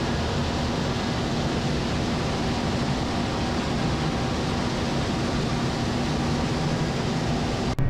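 Farm tractor running steadily: an even rush of engine and driving noise with a faint low hum, cut off abruptly near the end.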